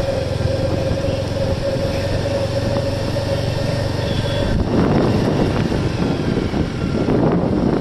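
Ride in a small motor vehicle: steady running hum with a held whine that stops about four and a half seconds in, after which wind buffets the microphone.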